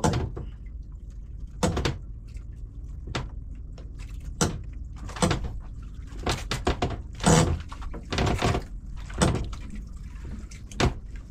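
About a dozen irregular knocks and thumps on the wooden boat's planking and bench as a fishing line is hauled in by hand, over a steady low hum.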